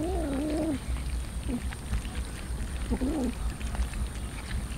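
A crowd of cats chewing and tearing raw chicken, with a steady patter of small wet clicks. One cat lets out a low wavering cry at the start, a short one about a second and a half in, and another about three seconds in.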